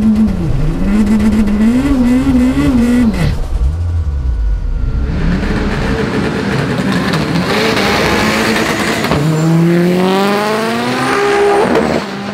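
Turbocharged Honda B-series VTEC four-cylinder in a front-wheel-drive Civic drag car: the engine revs rise and fall for the first three seconds, then it runs at full power with a loud, rough roar. From about nine seconds the pitch climbs steeply as the car accelerates, with a break near eleven seconds that sounds like a gear change before it climbs again.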